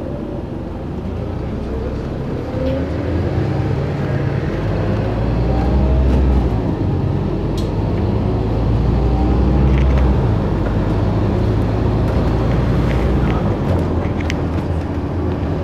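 Scania OmniCity single-deck bus heard from inside the saloon: its diesel engine pulls the bus along, the low engine note growing louder and rising in pitch about two seconds in, strongest through the middle, easing near the end, with small rattles and clicks from the interior.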